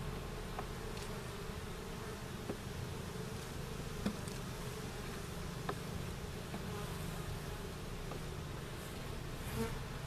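Honeybees buzzing in a steady hum around an opened hive, with a few light, sharp knocks here and there.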